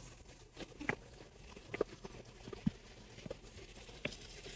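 Footsteps going down concrete steps: a series of faint, irregular taps.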